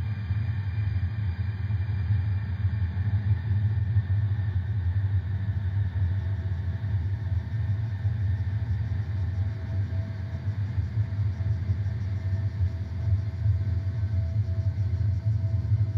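A steady low rumbling drone with faint sustained high tones above it.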